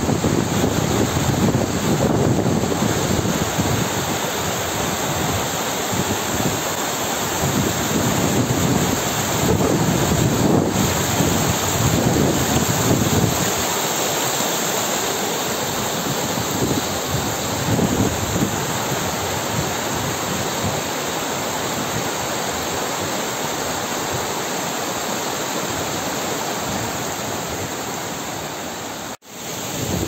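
Spring water rushing and splashing down a rocky cascade in a steady rush, with wind buffeting the microphone in the first half. The sound briefly cuts out near the end.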